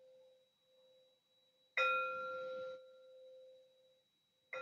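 A singing bowl struck about two seconds in, ringing one low, steady tone with higher overtones that fades away over a couple of seconds. It is struck again at the very end. The bell marks the start of a short guided breathing meditation.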